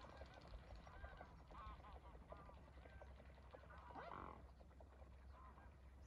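Faint calls of a flock of waterbirds: many short calls in quick succession in the first two seconds, then a louder harsh call with a falling pitch about four seconds in.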